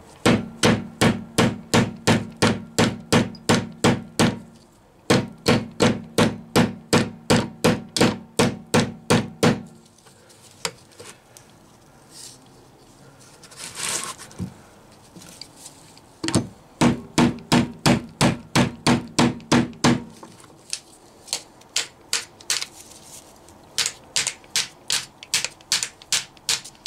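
Hammer knocking a rocker pedestal along a Rover V8 rocker shaft to drive it off, because the pedestal is tight where it was bolted down. The sharp knocks come about three a second in runs of several seconds with pauses between, and the last run is lighter.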